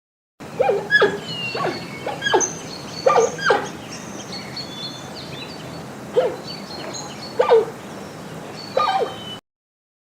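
Giant panda calling: about ten short, sharp calls, mostly in pairs or threes with gaps between, over a background of birds chirping.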